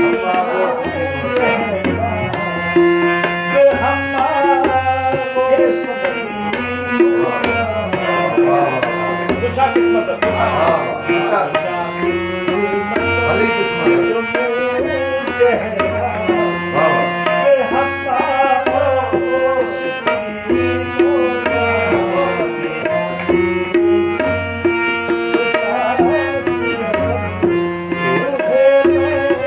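Tabla playing a steady rhythmic cycle under sustained melodic accompaniment, in a South Asian classical-style instrumental passage.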